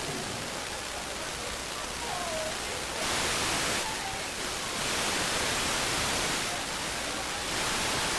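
Television static: a steady hiss that steps louder for short stretches about three seconds in, again in the middle and near the end, with faint wavering voice-like tones underneath.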